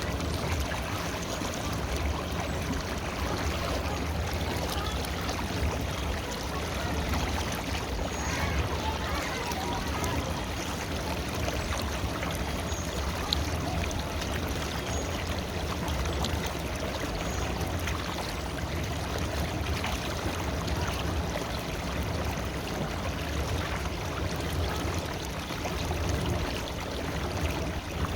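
Steady rush of flowing river water, with a strong low rumble underneath.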